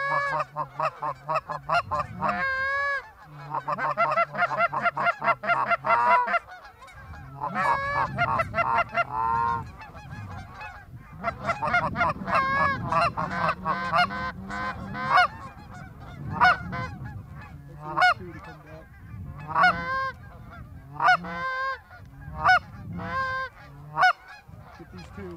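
Canada goose honks and clucks, many short calls in quick succession. They are densest and loudest in the first six seconds, then come in separate bursts.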